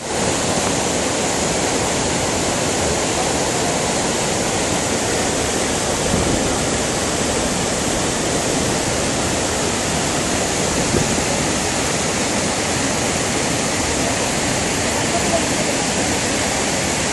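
Steady rushing of water pouring over a reservoir's overflow weir and tumbling down rocky cascades as white water.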